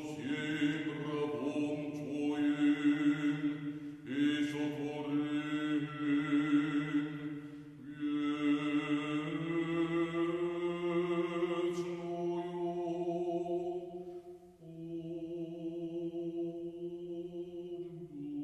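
Slow liturgical chant in the Orthodox manner: voices holding long notes over a steady low drone, in phrases that break off and start again every few seconds.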